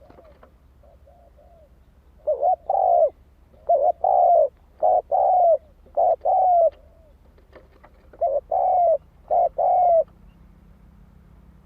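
Spotted dove singing: after a few faint coos, a run of loud coo phrases, each a short note followed by a longer slightly falling one, repeated about six times and stopping about ten seconds in.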